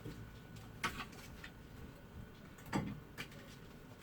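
Kitchen items being handled on a counter: two light knocks, about a second in and near three seconds in, the second with a dull thud, amid a few faint clicks.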